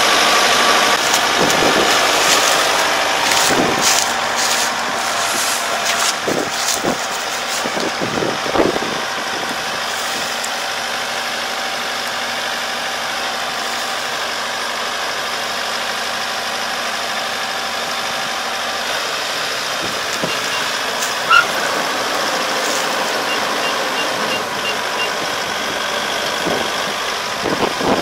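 An engine running steadily, with scattered knocks and clatter over the first several seconds. A short run of faint, evenly spaced high beeps sounds a little past the middle.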